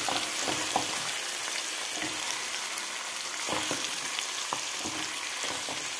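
Marinated chicken pieces sizzling in hot oil as a wooden spatula slowly turns them over, with a few short scrapes and knocks of the spatula against the pan. The chicken is browned on one side and is being flipped to fry the other.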